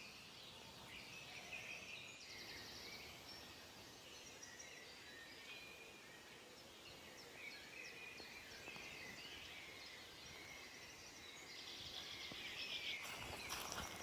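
Faint small songbirds chirping and calling, with a brief rapid trill a couple of seconds in. Near the end a crackling rustle of quick clicks sets in and grows louder.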